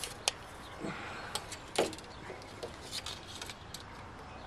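Handling of a steel tape measure: a run of light, scattered clicks and rattles from the blade, with a few soft knocks against a plastic drum.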